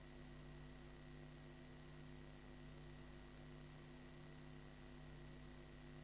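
Near silence: faint steady mains hum and hiss from a blank stretch of videotape.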